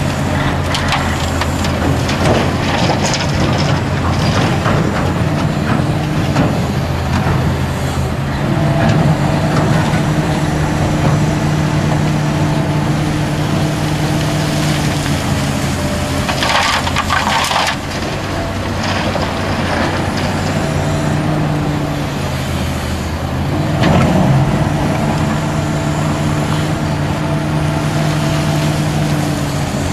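Hitachi Zaxis 350LCN excavator's diesel engine running under hydraulic load as it digs and swings, its note rising and falling as the work goes. Twice, a little past the middle and again later, a load of soil rushes and rattles from the bucket into a dump truck's steel body.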